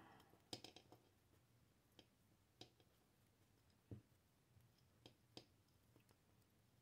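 Near silence: faint room tone with a few soft, scattered clicks from fingers plaiting strands of horsehair.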